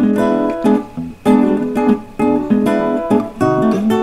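Background music on plucked strings, with a new chord struck about once a second.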